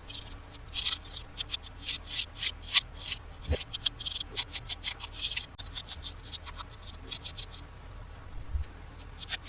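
Toy packaging being handled: a quick run of short, sharp scratchy crackles that thins out about three quarters of the way through.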